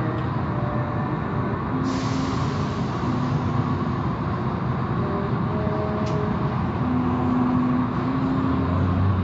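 Automatic car wash running: a steady, dense rumble of machinery and spraying water, with a brief hiss about two seconds in.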